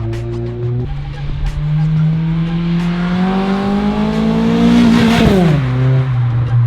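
Acura RSX with an HKS Hi-Power exhaust accelerating past: the engine note climbs steadily for about four seconds, then drops sharply as the car goes by, about five seconds in.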